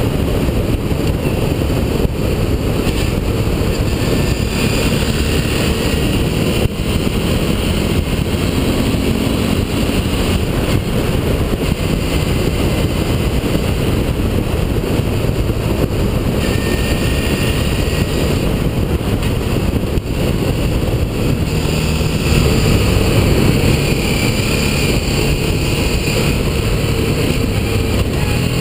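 Motorcycle engine running at cruising speed under heavy wind rush and road noise on the bike-mounted camera, steady throughout, a little louder about two-thirds in.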